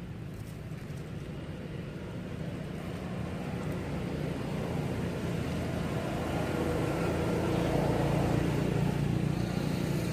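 A motor vehicle's engine running, a steady low hum that grows louder over several seconds and is loudest near the end.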